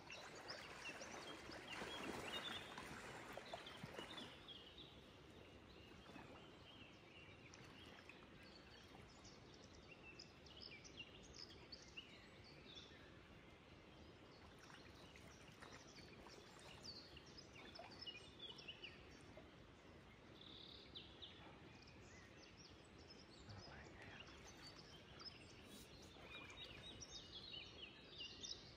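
Quiet outdoor ambience with faint birdsong: scattered short chirps throughout over a low, steady background hiss, which is a little louder in the first few seconds.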